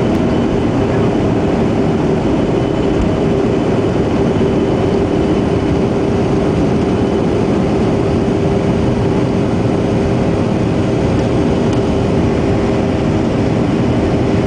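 Cabin noise of a Southwest Boeing 737's turbofan engines at takeoff power through the takeoff roll, liftoff and climb-out, heard inside the cabin: a loud, steady rush with a steady hum underneath.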